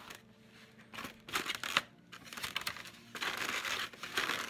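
Foam takeout clamshell boxes and plastic wrapping being handled, closed and slid across a table. A few knocks come near the middle, then a dense crinkling and rubbing for the last second or so.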